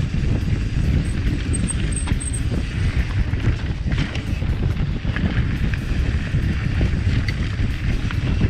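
Wind buffeting a chest-mounted GoPro microphone during a mountain-bike descent on dirt singletrack, over a steady low rumble from the tyres on the trail and scattered small clicks and rattles from the bike.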